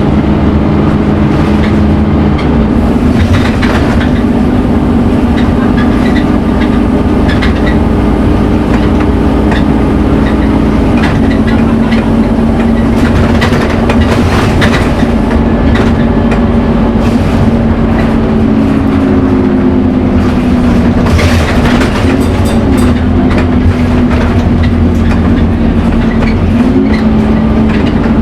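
Scania N230UD Omnicity double-decker bus heard from onboard while driving, its engine and drivetrain running loudly with a hoover-like whine whose pitch rises and falls a few times with speed. Short rattles and knocks come from the bus body.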